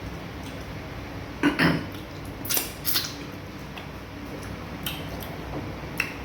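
Eating at the table: a few short clinks and taps of dishes and cutlery, the loudest a pair about a second and a half in, with more around two and a half and three seconds.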